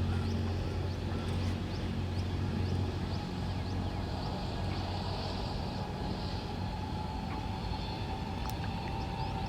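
A steady low engine-like hum that weakens after the first few seconds, with many short high chirps over it and a steady whine coming in during the second half.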